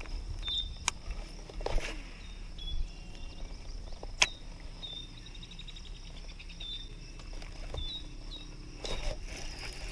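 Open-air ambience: a bird chirping short hooked notes on and off, with a short trill midway, over a steady high hiss. A few sharp clicks cut in, the loudest about four seconds in, with brief rustles near the start and end.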